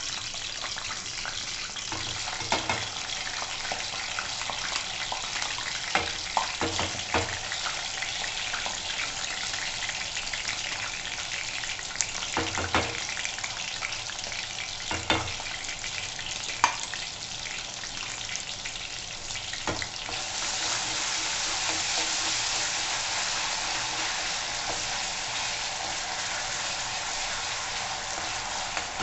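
Ground masala paste sizzling in hot oil with curry leaves in a steel kadhai, with a few sharp clinks and knocks at irregular moments. The sizzle grows louder and fuller about two-thirds of the way through as the paste is stirred with a steel spatula.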